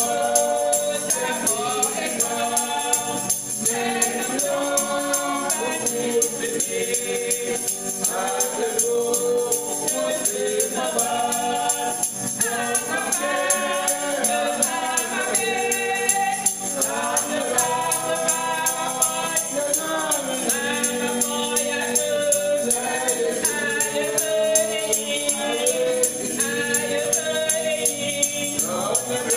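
Voices singing a hymn together, with a headless hand tambourine's metal jingles shaken in a steady rhythm.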